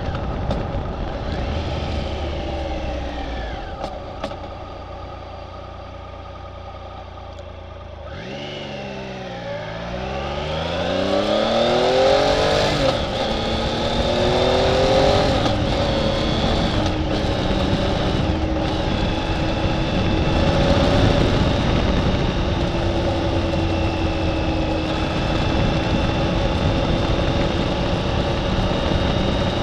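Motorcycle engine on the move. It eases off and quietens a few seconds in, then its note dips and climbs as it speeds up about eight seconds in, and it settles into a steady cruise. By the end the cruise is being held by the throttle lock, with the rider's hand off the grip.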